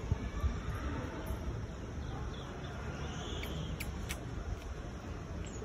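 A few light clicks of plastic toy kitchen utensils being handled, over a steady low rumble of background noise.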